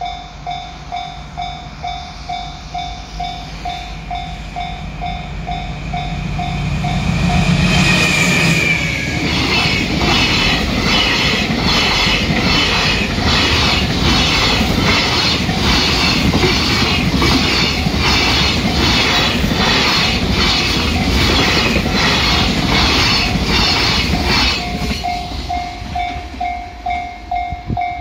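Japanese level-crossing warning bell clanging about twice a second as a DF200 diesel freight locomotive approaches and passes with a swelling engine rumble about eight seconds in. A long train of container wagons follows, its wheels clattering over the rail joints in a steady beat that drowns the bell. Near the end the train has gone by and the crossing bell is heard again.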